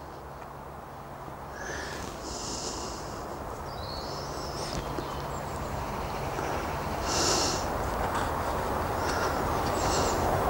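A man sniffing and breathing in short bursts, several times, over a low steady rush that slowly grows louder.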